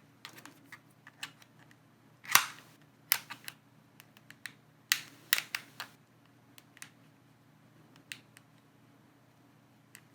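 Guitar pick prying at the clipped plastic battery holder inside a keyboard: scattered sharp plastic clicks and snaps, the loudest about two seconds in, with small clusters of clicks after it.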